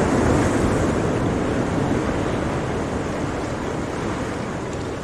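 Steady rushing noise, loudest at the start and easing off a little.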